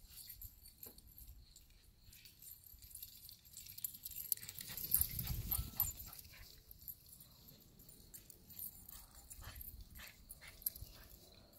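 Two cavapoo puppies romping on a lawn: faint dog sounds among short scattered clicks and rustles. A louder low rumble comes about five seconds in.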